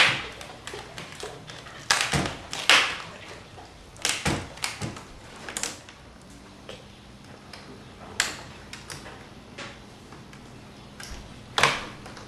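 Plastic screen bezel of a laptop being pried off by fingernail, its clips popping loose in a series of sharp snaps and clicks, with quieter plastic clicking between them.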